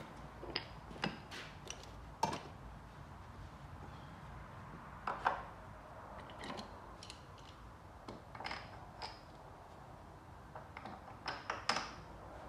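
Scattered light clicks, taps and knocks of parts and tools being handled by hand at a car's front wheel arch, with a quick cluster of clicks near the end.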